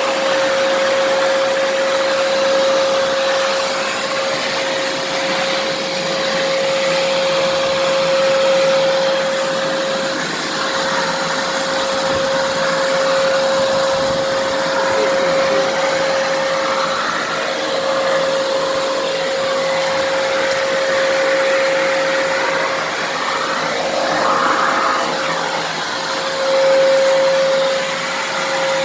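American Micronic 21-litre, 1600 W wet & dry vacuum cleaner running steadily, its motor giving a constant whine over the rush of air. The level swells slightly now and then, with one louder swell near the end.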